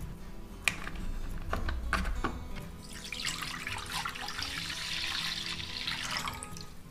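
Liquid being poured into a pan for about three and a half seconds, after a few light knocks and clicks.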